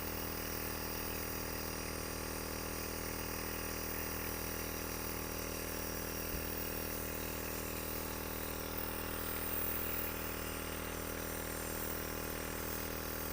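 A steady low hum with even overtones that does not change, and a single soft thump about six seconds in.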